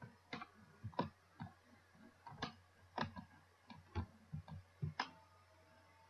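Computer mouse and keyboard clicking: about a dozen short, sharp clicks at an irregular pace, stopping about five seconds in.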